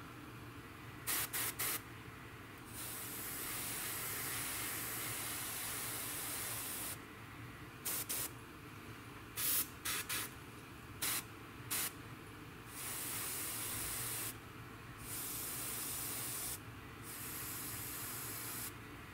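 Airbrush spraying metallic paint in on-off bursts of hiss as the trigger is pressed and released: three quick puffs, a long pass of about four seconds, more quick puffs, then several passes of one to two seconds each.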